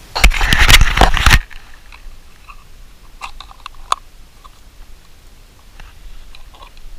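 A loud crunching rustle lasting about a second near the start, then a few light clicks and taps as a small camping gas stove on its canister is handled.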